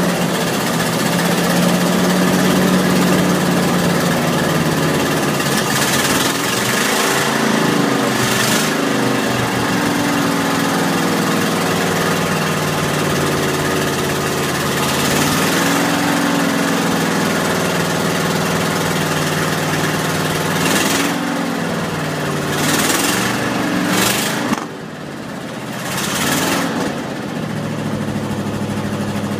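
A 1986 Ford F-250's engine running at the tailpipe while still cold after sitting unused, smoking. The throttle is blipped several times, each blip pitching the engine up and back down, and the idle drops lower a little after twenty-four seconds in.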